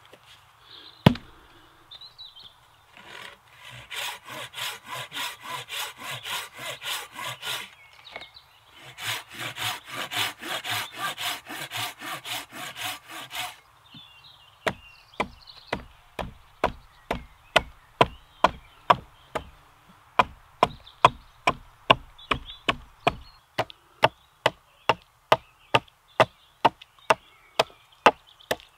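A Silky Bigboy folding saw cutting a wooden pole to length on a stump in two spells of quick, even back-and-forth strokes, then a Hultafors hunting axe chopping into the pole in steady blows, about two a second. A single sharp knock sounds about a second in.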